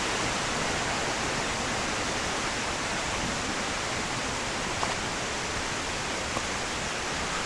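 Ton Chong Fa waterfall's cascades giving a steady rush of falling water.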